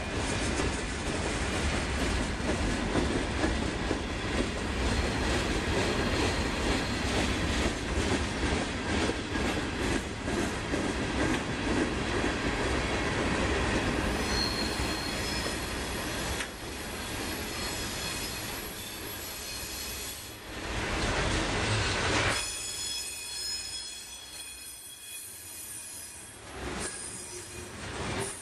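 Freight cars of a long train rolling past at trackside, a steady rumble and clatter of wheels on rail joints. From about halfway through, several high, steady wheel squeals ring over it, and they grow more prominent near the end as the tank cars pass.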